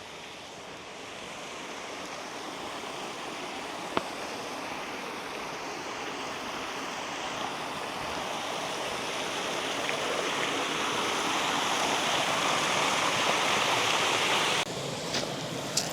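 Waterfall rushing: a steady hiss of falling water that grows gradually louder as it is approached, then drops off sharply near the end. A single sharp click about four seconds in.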